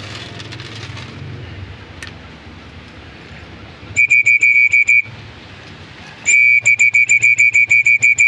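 A high, steady-pitched whistle blown in rapid pulses, about six a second: a short run about four seconds in, then a longer run from about six seconds in. It is the pigeon keeper's whistle calling his pigeons to feed.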